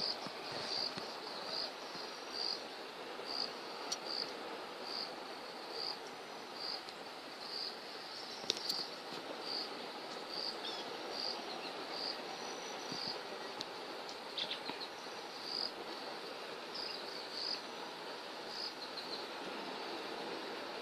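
An insect chirps in short, evenly spaced pulses, a little more than one a second, over the steady rushing of the flooded river.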